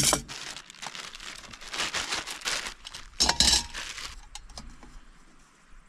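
Thin aluminium parts of a Trangia 27 cook set clinking and scraping together, mixed with a plastic bag crinkling, for about four seconds, loudest around the middle; a few light clicks follow and it goes quieter near the end.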